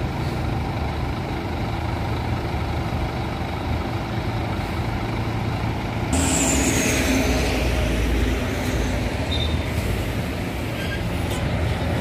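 Scania coach's diesel engine running with a steady low rumble; about six seconds in, a sudden loud hiss of air brakes, falling slightly in pitch and fading over about two seconds.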